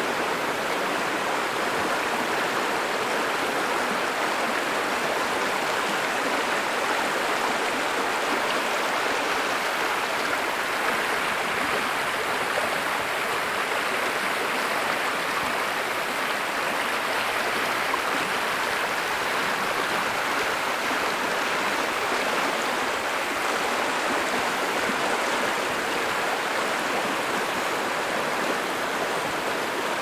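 Shallow, fast creek water rushing over rocks and riffles: a steady, even rush with no breaks.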